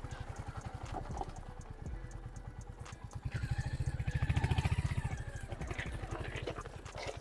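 Royal Enfield Hunter 350's single-cylinder engine running at low revs with an even pulse as the bike labours, stuck on loose rocks. Its revs and level rise about four seconds in as throttle is given, then drop back.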